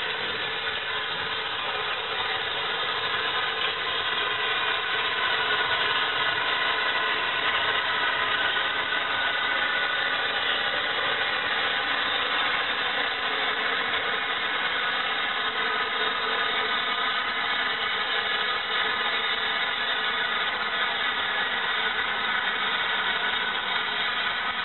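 Bulleid West Country class steam locomotive 34028 'Eddystone' moving slowly onto shed, giving a steady hissing, mechanical noise without distinct exhaust beats.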